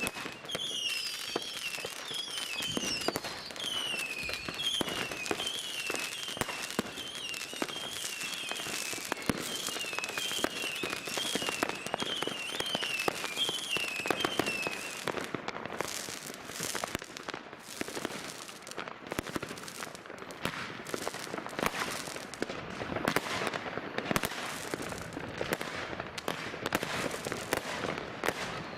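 New Year's Eve fireworks: a dense run of firecracker bangs and crackling reports. A high wavering whistle rising and falling over and over sounds through about the first half, then stops.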